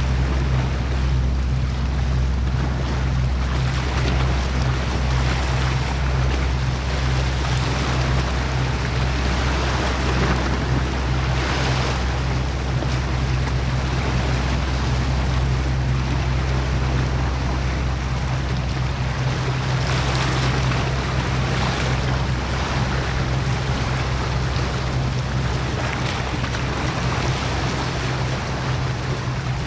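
Steady low drone of ship engines across the water, with the wash of waves and wind on the microphone; the hiss of the wind swells briefly a couple of times.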